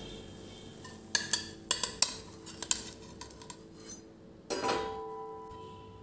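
Metal spatula scraping and clinking against a flat griddle (tawa) and a ceramic plate as an uttapam is lifted off and slid onto the plate: a string of sharp clinks, then a louder strike about four and a half seconds in that leaves a ringing tone.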